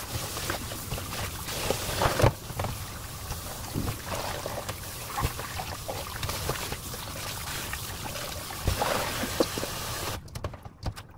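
Tap water running into a stainless steel bowl of wild chives (dallae) as hands swish and rinse them, with splashes throughout. The running water stops abruptly near the end.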